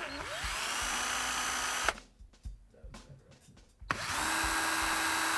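Power drill with a 3/16 bit enlarging two pilot holes in the metal ski bracket: two runs of steady motor whine of about two seconds each, the second starting about four seconds in, with a few small clicks between them.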